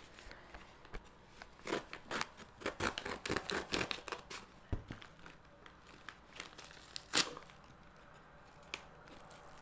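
A shipping package being torn open by hand, its wrapping crinkling: a quick run of tearing and rustling noises in the first half, then one sharp rip about seven seconds in and a few scattered rustles.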